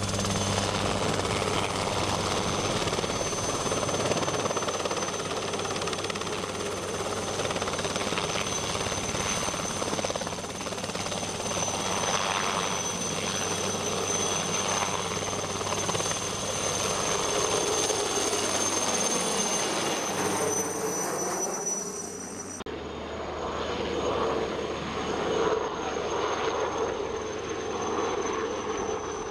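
Helicopter hovering low overhead with a loaded fertiliser bucket slung beneath it, its rotor and engine running steadily. After a sudden cut about 22 seconds in it is heard farther off, flying low over the forest while spreading fertiliser.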